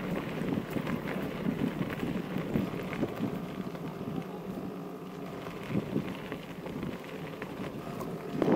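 Mountain bike rolling over a gravel track: a steady crunch of tyres on loose stones, with scattered clicks and rattles.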